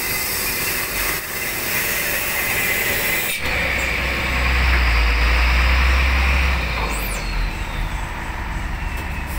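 Large diesel trucks driving off a ro-ro ferry onto the steel ramp, their engines running over a steady noise of tyres and machinery. A deep low drone swells in a few seconds in and holds for about three seconds before easing off.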